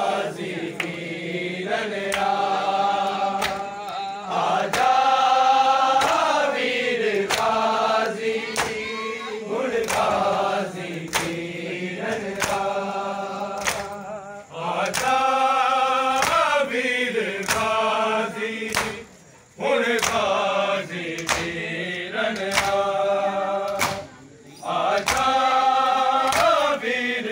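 A crowd of men chanting a noha (Shia lament) in unison, in phrases with short breaks between lines, with evenly spaced chest-beating slaps (matam) keeping time, a little under one a second.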